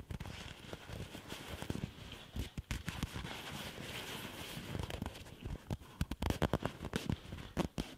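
Sheer mesh fabric of a Big Agnes Fly Creek HV UL1 ultralight tent rubbed and crumpled between the fingers: irregular soft rustling with many small crackles and clicks, denser in bursts about two and a half, six and seven and a half seconds in.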